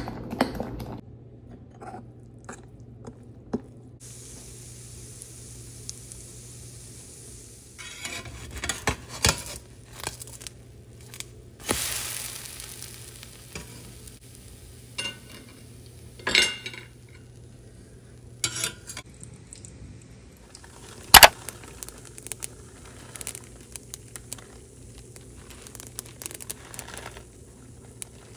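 Pancake-making sounds: batter stirred in a mixing bowl and pancakes sizzling softly in a frying pan, with scattered clinks and knocks of utensils over a low steady hum. A sharp knock about two-thirds through is the loudest sound.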